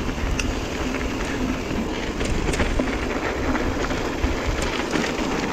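Mountain bike riding along a dirt trail: a steady rumble of tyres on the trail and rattling of the bike, with a few sharp clicks and knocks, mixed with wind on the microphone.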